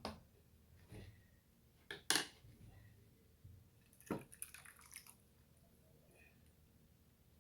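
Wet chicken and vegetable casserole filling being put into a baking pan: a few brief squishy splats and knocks, the loudest about two seconds in, then a short cluster about four seconds in.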